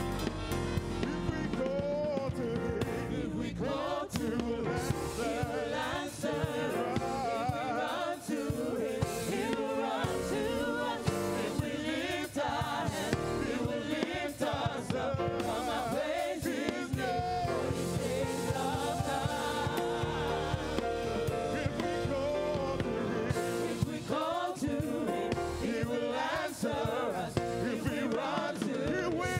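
Gospel choir singing a praise and worship song, with lead singers on microphones and live band accompaniment.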